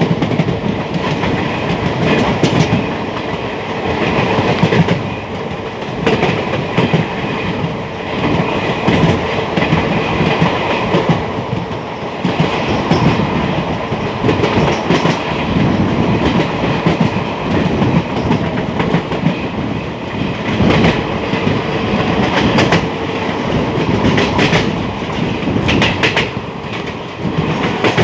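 Express passenger train running at speed, heard from inside the carriage: a steady rumble and rush of wheels on rails, with wheels clicking over the track at uneven intervals.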